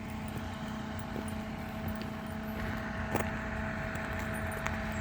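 Steady hum of an idling engine, with one sharp click about three seconds in.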